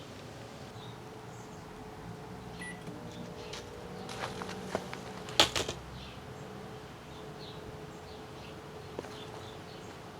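1200-watt Emerson microwave oven running with a steady hum while fireworks sit inside it, with a few faint clicks and one sharper snap about five and a half seconds in.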